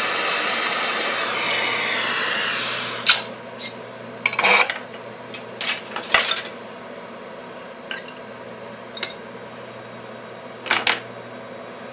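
Jeweler's soldering torch flame hissing steadily, then stopping about three seconds in with a click. A scattering of light metallic clicks and taps follows, from small tools and the filigree piece being handled.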